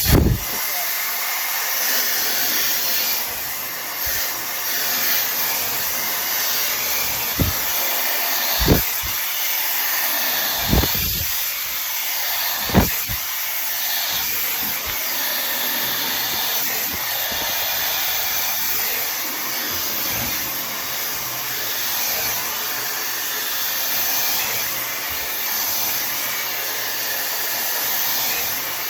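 Tymo Air Hype hair dryer blowing hot air steadily, coming on at the start. A few short low thumps break in between about 7 and 13 seconds in.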